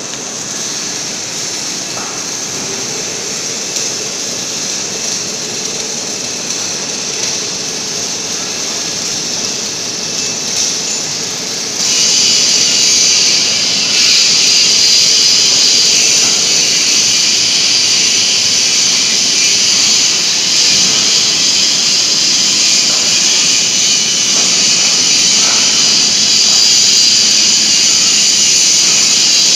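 Two-torch gantry submerged-arc beam welding machine running, a steady high hiss over a low hum. The hiss steps louder suddenly about 12 seconds in and again about 14 seconds in.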